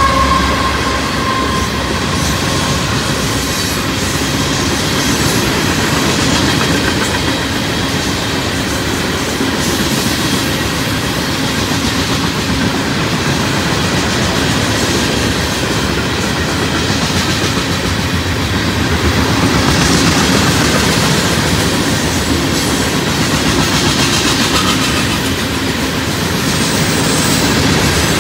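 Loaded freight cars of a Union Pacific rock train rolling past at speed, a steady heavy noise of steel wheels on rail. A falling tone dies away in the first second or two.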